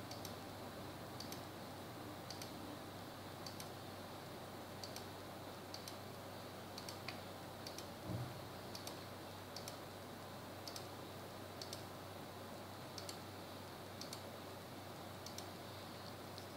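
Computer mouse clicking about once a second, each click marking one corneal endothelial cell for a specular microscope cell count, over a steady low hum. One soft knock about halfway through.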